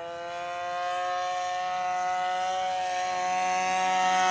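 A 35cc DLE single-cylinder two-stroke gas engine on an RC warbird runs at a steady high buzz in flight. It grows steadily louder as the plane approaches.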